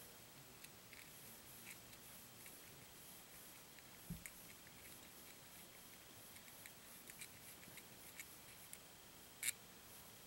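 Faint, scattered small clicks and ticks as a slipper clutch nut and spring are spun off the threaded shaft of an RC truck's spur gear assembly by hand. There is a soft low bump about four seconds in and a sharper click about nine and a half seconds in.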